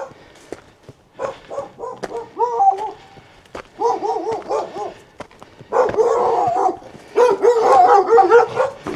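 A dog barking in quick runs of several barks each, starting about two seconds in and growing louder. It is barking at a passing walker to warn him off.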